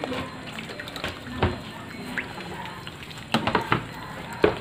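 Water splashing and sloshing in a plastic basin of live catfish, in a few short splashes: one about a second and a half in, a cluster of several a little past the middle, and one more near the end.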